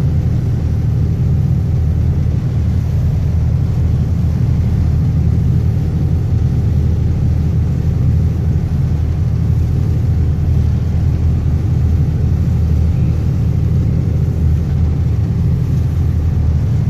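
Boat engine running steadily under way, a loud, even low rumble heard from on board.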